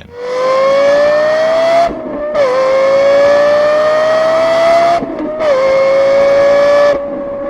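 Lexus LFA's 4.8-litre V10 engine running hard at high revs, its pitch climbing steadily in each gear. It drops briefly at upshifts about two and five seconds in, with a further dip near the end.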